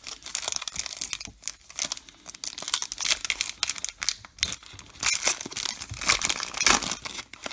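Foil wrapper of a Topps Chrome baseball card pack crinkling and tearing as it is pulled open by hand: a rapid string of crackles, with louder rips about three seconds in and again near the end.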